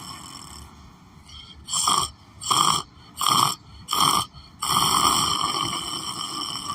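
A sleeping person snoring. A long drawn-out snore fades away, then come four short, sharp snores about two-thirds of a second apart, then another long snore.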